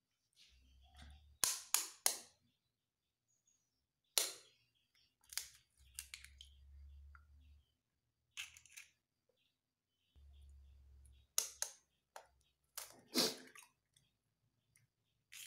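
Raw eggs being cracked into a glass bowl: sharp cracks and taps, mostly in quick pairs or threes, spaced a few seconds apart, with faint low rumbling between them.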